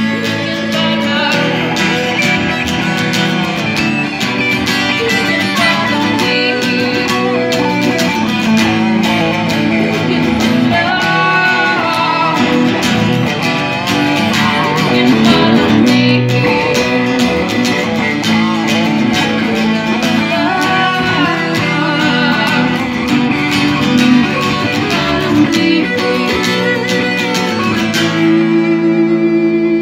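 A live band playing a rock cover: strummed acoustic guitar over electric bass and drums. A chord is held near the end.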